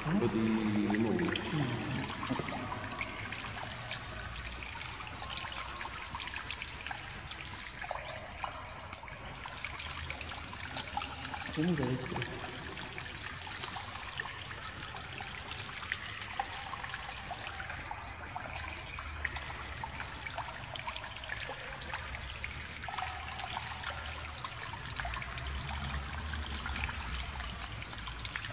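Water trickling steadily into a shallow rock-lined pool, with a voice briefly in the first couple of seconds and a short voice sound about twelve seconds in.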